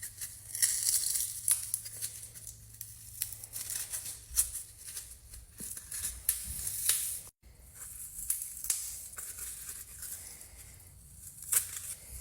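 Scratchy tearing and crinkling with many sharp clicks, the sound of hands working insulating foam, with a brief break about seven seconds in.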